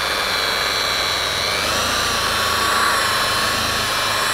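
Corded Ozito electric rotary polisher running with a wool pad, buffing cutting compound into a fibreglass boat's gel coat: a steady motor whine whose pitch shifts about a second and a half in.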